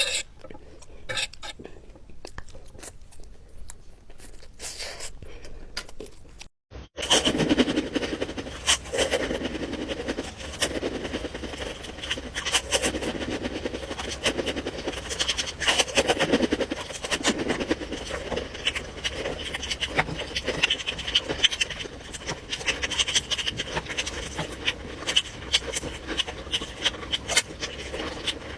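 Close-up eating sounds: sparse soft crunches and clicks at first, then, after a brief dropout about six and a half seconds in, louder and denser chewing noises that continue irregularly.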